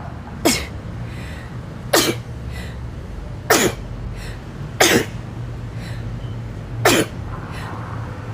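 A person sneezing five times in a row, roughly one every second and a half, each sneeze short and sharp with a falling tail, over a steady low hum.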